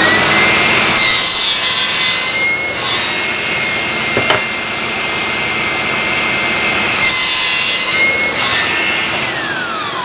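Festool TKS 80 table saw running with a steady high motor whine, making two crosscuts through MDF, each about two seconds long, one about a second in and one about seven seconds in. The motor winds down near the end.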